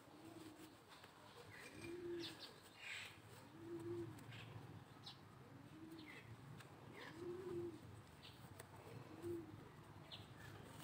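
Faint bird calls: a low, soft call repeated about every two seconds, with a few short, high chirps in between.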